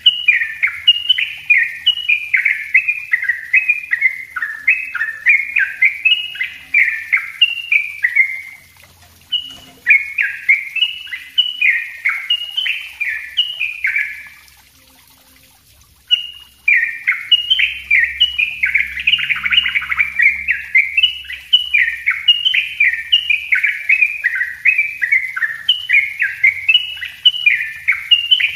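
Yellow-vented bulbul singing a dense, rapid-fire 'ropel' song: a fast string of short, bright, downward-sliding chirped phrases, about two a second. The song breaks off briefly twice, about a third of the way in and again halfway through.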